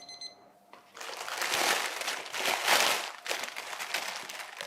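An electronic beep tone fades out just after the start. Then, from about a second in, comes loud, uneven crinkling and rustling of plastic being handled, as when a cover is pulled off the risen pizza dough balls.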